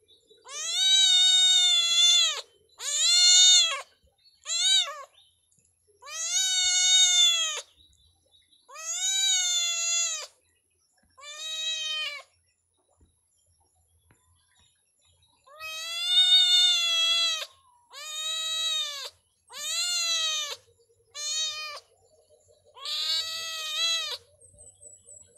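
Kitten meowing over and over, about eleven high-pitched meows, each rising and then falling in pitch, with a pause of about three seconds midway.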